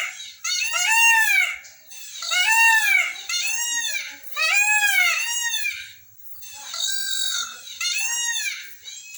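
Peacock calling over and over, a series of loud, piercing calls about one a second, each rising and then falling in pitch.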